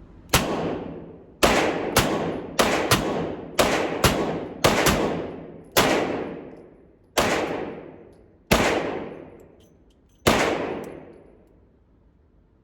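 Revolver fired double action in a string of about a dozen shots: rapid ones over the first five seconds, then slower shots about a second and a half apart, each with a long fading tail.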